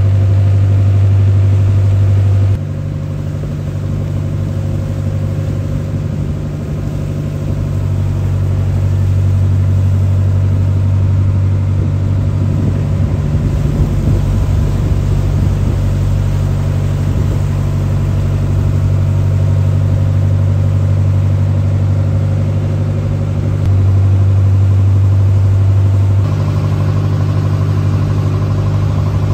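Boat engine running at a steady, deep drone, with water and wind rushing past the hull. The drone drops in level suddenly a couple of seconds in and comes back up near the end.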